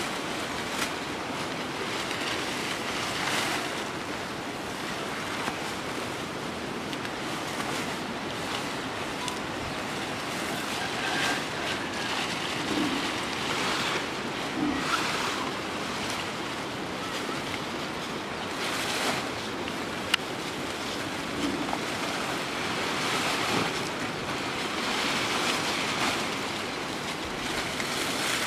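Leafy green branches rustling in bouts as they are handled and laid onto a thatched grass roof, over a steady rushing background.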